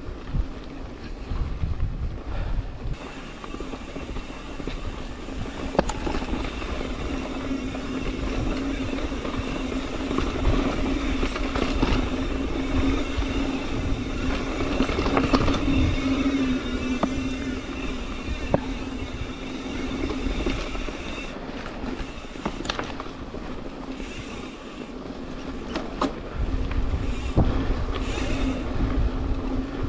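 A mountain bike riding along a trail: the Industry Nine Hydra rear hub's freewheel buzzes steadily while the bike coasts, drops out for a couple of seconds near the end, then buzzes again. Under it run tyre and wind rumble, with scattered clicks and rattles from the bike over bumps.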